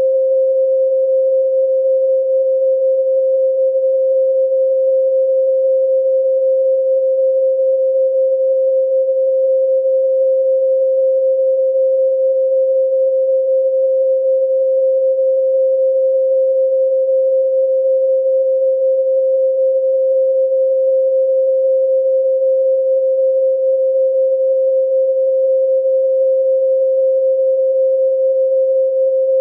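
A pure 528 Hz sine tone, held steady and unchanging at one pitch with no overtones.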